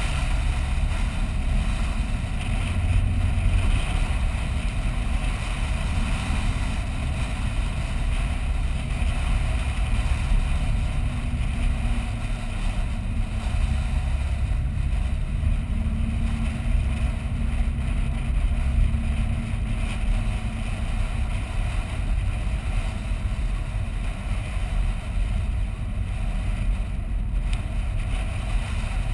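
Vehicle driving along beach sand: a steady low rumble of engine and tyres, mixed with wind noise on the microphone.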